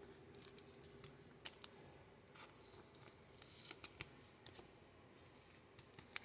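Faint, sparse clicks and taps of trading cards being handled and set down, with one sharper click about a second and a half in.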